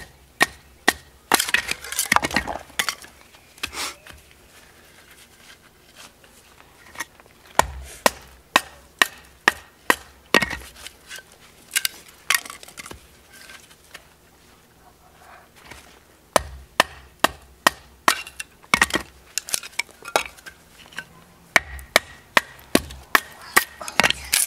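Batoning: a wooden block striking the spine of a TOPS XcEST Alpha knife over and over, driving the blade down through a board to split it into kindling. The strikes come as sharp knocks about two a second, in runs with a quieter spell in the middle, and the wood cracks and splinters as pieces split off.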